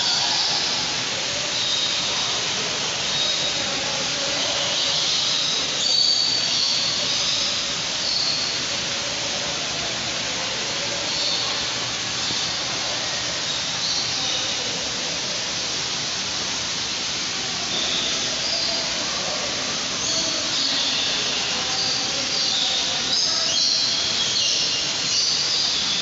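Many birds in an indoor aviary chirping and whistling, short high calls scattered throughout over a steady rushing hiss.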